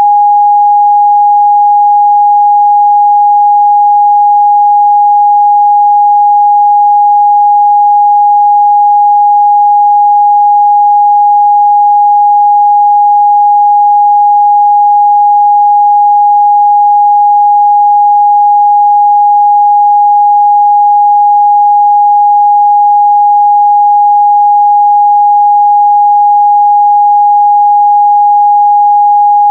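Continuous 824 Hz sine-wave test tone, a single pure pitch held steady at constant loudness.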